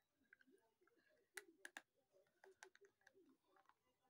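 Faint, sharp crunches of slate pencil being bitten and chewed: a quick run of three crisp snaps about a second and a half in, two more a second later, and lighter clicks between.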